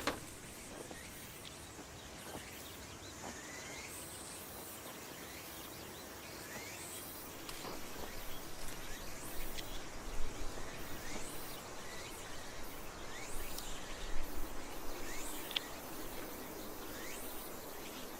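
Many short rising bird chirps, scattered irregularly, over a steady outdoor noise background that grows louder and rougher about halfway through.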